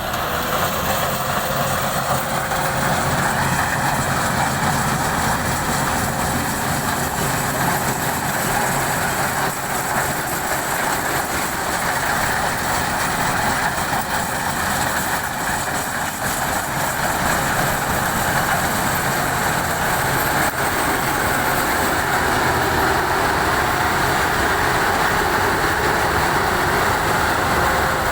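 An engine running steadily at an even pace, with a faint steady whine over a low hum.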